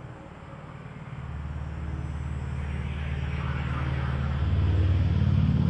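A motor vehicle going by on the road, its engine hum growing louder over a few seconds and loudest near the end.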